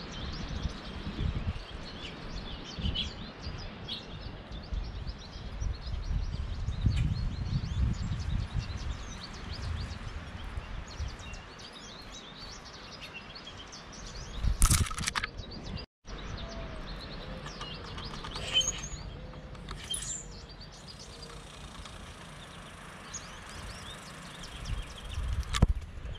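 Outdoor bird chorus: many short, high chirps and calls from small songbirds, over a low wind rumble on the microphone. A sharp knock sounds about halfway through and another near the end, and the sound cuts out for an instant just after the first.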